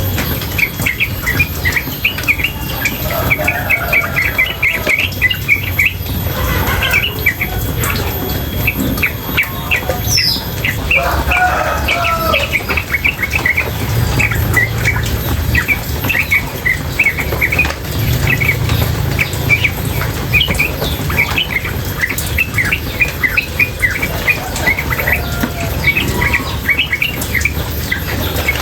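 Female yellow-vented bulbul (trucukan) calling in a rapid, unbroken chatter of short chirps, with the sound of running water underneath.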